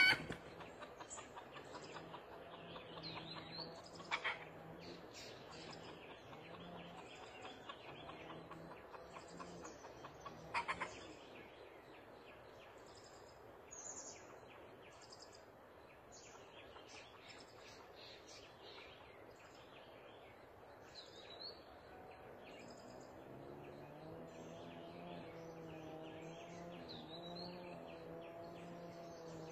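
Faint scattered chirps and short calls of small forest birds, with two louder single calls about four and ten seconds in. A faint low steady hum with several stacked pitches comes in about two-thirds of the way through.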